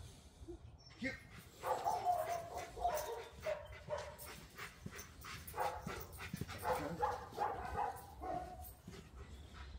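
Dog giving a run of short, high yips and whines, from about a second and a half in until near the end.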